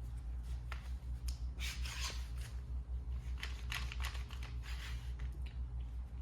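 Trigger clamp, its jaw reversed to work as a spreader, being squeezed in repeated strokes: a run of short ratcheting clicks and rasps as the bar advances and pushes the boards apart, over a steady low hum.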